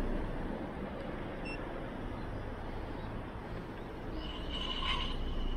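Slidefox NT e-scooter's built-in beeper sounding on power-up: one thin, steady tone starting about four seconds in, weak and squawky, as if a bit hoarse, over a low steady background hum.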